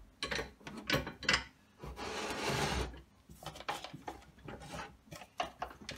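Clicks and knocks from hands working the vise and pivot lever of a Vevor portable metal-cutting bandsaw's base, setting it to a 45-degree angle. About two seconds in there is a scraping rub of about a second. The saw is not running.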